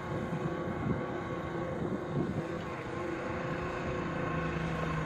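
A 300-horsepower classic fiberglass performance boat's engine running steadily at a distance, a low even drone.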